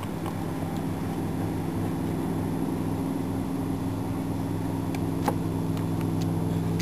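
An engine running steadily at a low, even pitch, growing louder as it comes closer. A few light clicks sound over it, the sharpest about five seconds in.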